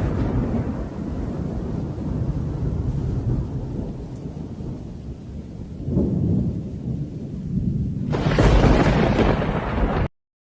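Thunderstorm during a rain-bomb downburst: a deep rumble under rushing noise that swells about six seconds in and again, loudest, about eight seconds in, then cuts off suddenly near the end.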